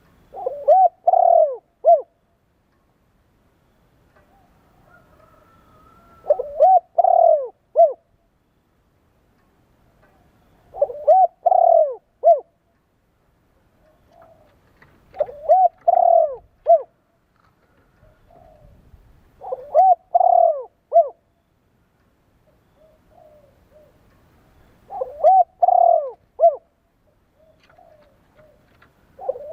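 Spotted dove cooing: a phrase about every four to five seconds, each a quick run of three or four arched coos ending on a short final note.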